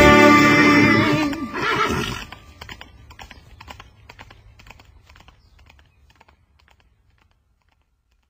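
The music ends about a second in, then a horse whinnies and clip-clopping hoofbeats fade away into the distance.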